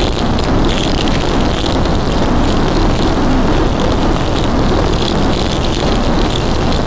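Steady, loud rumbling noise with a hiss higher up, holding without a break.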